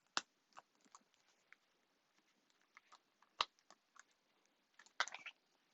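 Scattered small clicks and taps of hands working at a stiff cosmetics package to get it open. The loudest knocks come just after the start, about three and a half seconds in, and a short cluster about five seconds in.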